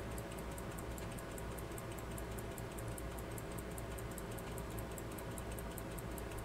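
1800s Waltham pocket watch movement ticking steadily, about five ticks a second: the balance is still running on the wound mainspring, which has not yet been let down.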